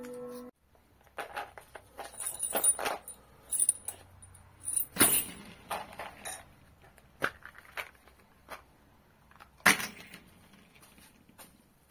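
Scattered clinks, clicks and knocks of small metal drill bits and a plastic bit box being handled and set down on a workbench, with two sharper knocks, one about five seconds in and one later.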